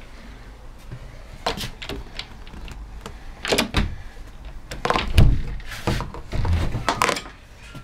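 Wooden interior door being bumped and moved, a run of irregular knocks and thuds, the loudest a deep thump about five seconds in.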